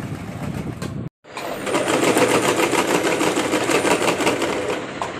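Singer electric household sewing machine stitching at speed, its needle running in a fast, even rhythm, with a brief break about a second in.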